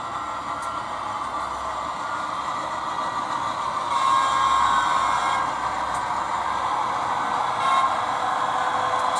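HO scale model train running along the track, a steady hum of motor and wheels on rail with a few faint clicks, growing louder about four seconds in as it comes closer.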